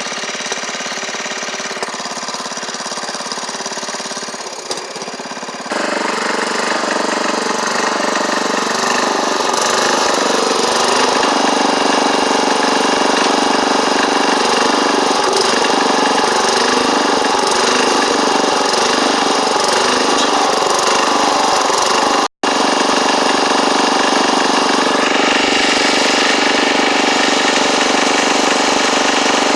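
Craftsman LT1138 lawn tractor engine running steadily, getting louder from about six seconds in.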